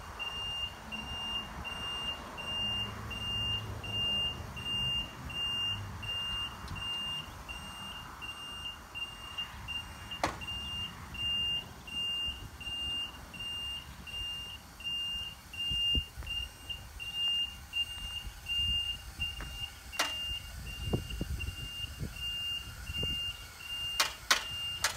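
Skyjack 3219 electric scissor lift lowering its platform, its descent alarm beeping steadily over a low rumble. A few sharp clacks near the end as the scissor stack comes down to its stowed position.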